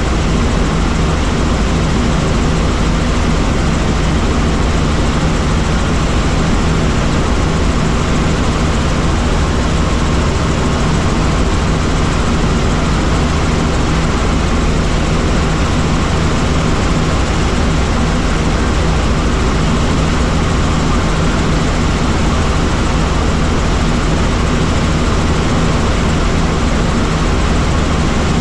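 Helicopter in steady flight: its engine and rotor make a constant loud drone, with a steady low hum under a broad rushing noise.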